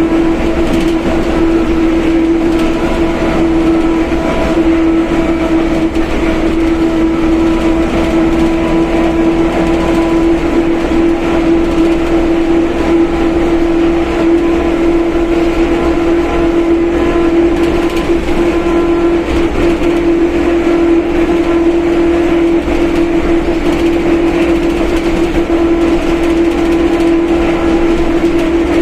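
Differential of a Mercedes-Benz OF1721 BlueTec 5 bus howling loudly in a steady, high single tone over the running and road noise of the bus, holding the same pitch at a steady speed.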